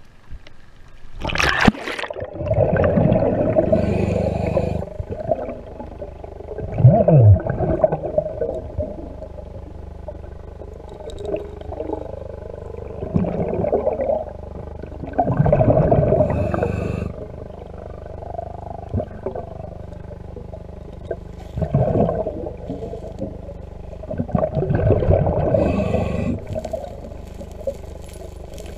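Underwater sound through a submerged camera while hands fan sand and silt off a river bottom. There is a sharp splash about a second and a half in as the camera goes under, then low rumbling bursts that recur every few seconds.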